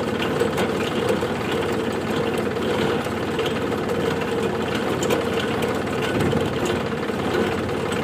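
Tractor engine and tractor-driven potato harvester running steadily, with a fast, even mechanical clatter.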